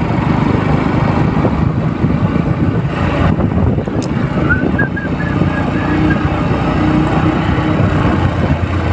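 Motorcycle riding along at speed: the engine running steadily under a loud rumble of wind on the handlebar-mounted microphone.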